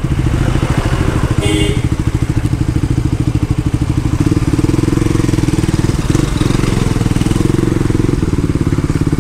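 Motorcycle engine running at low revs close by, with a steady, even pulsing beat as the bike rolls slowly along.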